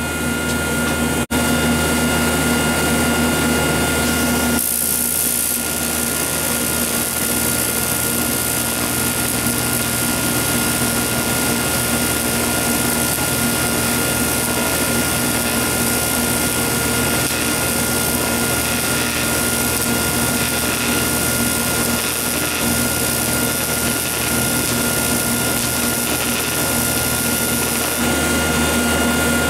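TIG welding arc burning on heavy-wall aluminium tube: a steady high hiss that starts about five seconds in and stops near the end. A steady electrical hum runs under it throughout.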